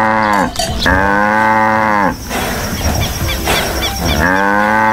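Cow mooing: three long, low moos, each about a second and a quarter long, the pitch rising slightly and falling back. The first ends about half a second in, the second follows right after, and the third begins near the end after a pause.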